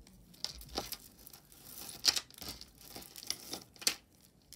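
Beads and chain of a multi-strand necklace clicking and rustling against each other as it is untangled by hand, with a couple of sharper clicks about two and four seconds in.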